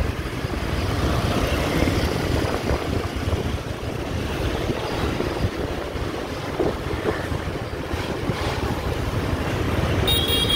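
Wind buffeting the microphone over the rumble of a motor scooter engine and surrounding scooter traffic, heard from the back of a moving motorbike. A horn beeps briefly near the end.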